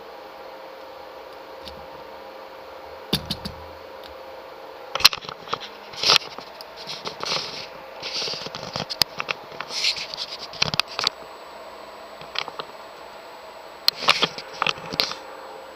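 Irregular clicks, scrapes and short rattles of something being handled, in clusters with gaps between, over a steady faint hum.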